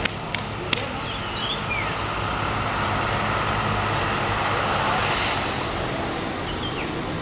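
Diesel bus engine running with a rasping ('ngorok') exhaust, swelling a little midway and easing off near the end, with a few light clicks in the first second.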